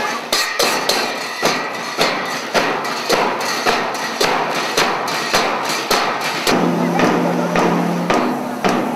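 Marching band's big bass drum and large hand cymbals struck together in a steady beat, about two strokes a second. About two-thirds of the way through, a held low tone joins the beat.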